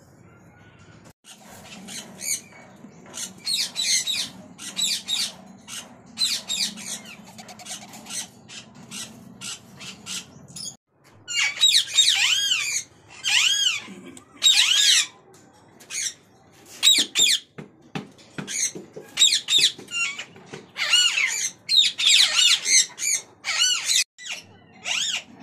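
Alexandrine parakeet giving harsh, screeching squawks over and over, loud from about eleven seconds on, with softer calls before.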